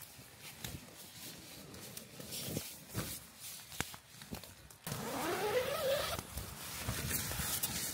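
Rustling and knocking of tent fabric, clothing and gear as a camper shifts about inside a small ultralight tent, with a few sharp clicks. About five seconds in, a louder sound rises steadily in pitch for about a second, then breaks into rustling.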